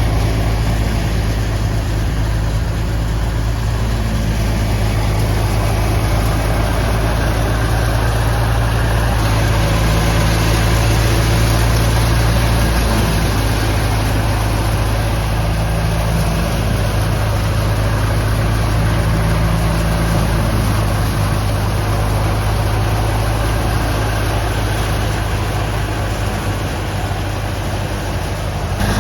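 A wheat thresher running steadily with its driving engine: a loud, constant low hum under a dense rushing noise, which grows brighter about a third of the way through.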